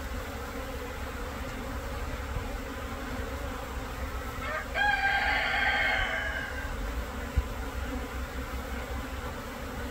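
Steady buzzing of a crowd of native Korean honeybees (Asian honeybees) at the hive entrance during swarming. About five seconds in, a rooster crows once for about two seconds, the loudest sound here.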